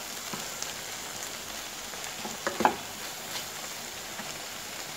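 Chicken, mushroom and spinach vegetable sauce sizzling steadily in a hot pan, with one brief louder sound about two and a half seconds in.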